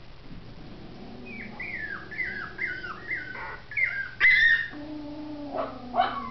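Small terrier puppies whimpering: a run of about six short, high whines, each falling in pitch, about two a second, then a sharper, louder yelp and a couple of short yips near the end.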